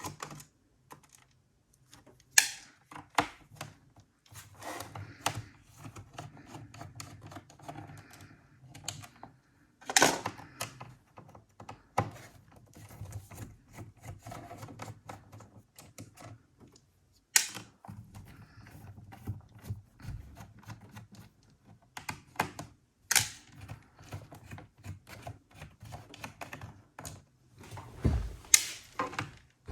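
Screws being taken out of a laptop's bottom case with a screwdriver: scattered small clicks and ticks of the tool and screws, with a few louder clacks spread through.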